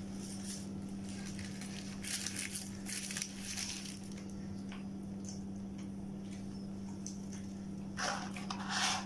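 Paper food wrapper and packaging crinkling in short bursts, about two and three seconds in and again near the end, over a steady low hum.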